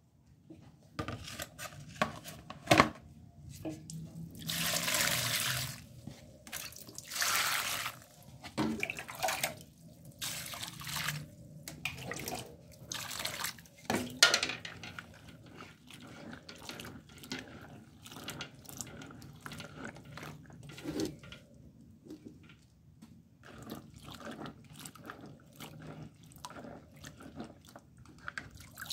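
Small shallots being washed by hand in a plastic colander sitting in a basin of water: water splashing and sloshing in irregular bursts, with drips and a couple of sharp knocks.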